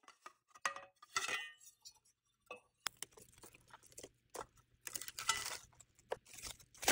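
Kitchen utensils clinking on dishware: a few sharp clinks, one ringing briefly about a second in. Then scraping and rustling of food being worked, over a faint steady hum.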